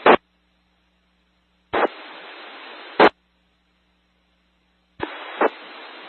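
FM two-way radio on a ham repeater with stations keying up without speaking. There are two brief open transmissions, each about a second and a half of steady hiss ending in a loud squelch burst, with dead silence between. Another squelch burst comes right at the start.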